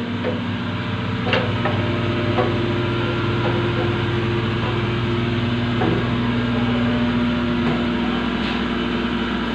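Ship's engine-room machinery running: a steady, loud drone with several low held tones, with a few faint clicks over it.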